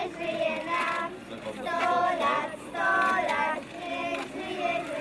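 Children's high voices singing, several held notes with short breaks between them.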